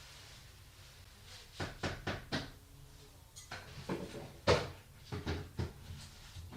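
A quick run of knocks and clunks from objects being handled, starting about a second and a half in. The loudest knock comes about four and a half seconds in.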